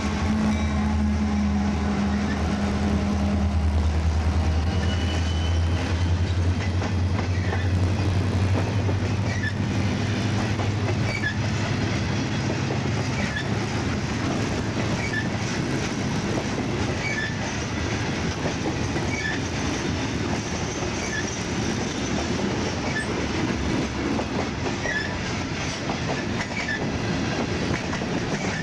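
CSX freight train passing: the diesel locomotives' engine rumble fades over the first ten seconds or so, then the freight cars roll by with the steady rumble and repeated clicking of wheels over rail joints.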